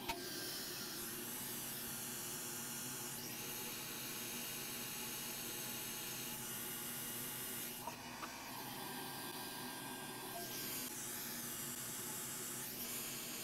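Steady, faint airy hiss at a soldering bench while a small capacitor is soldered onto an SSD board, with two faint ticks, one at the start and one about eight seconds in.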